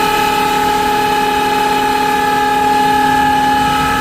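Smithy AutoMate LT1440 CNC lathe spindle running at high speed with a loud, steady high-pitched whine from its worn spindle bearings, which turned out rough and ticking when spun by hand.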